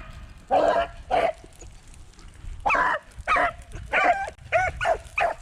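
Hunting beagles giving a string of short, pitched yelps and bays, about seven in a few seconds, as the pack closes on a wounded rabbit.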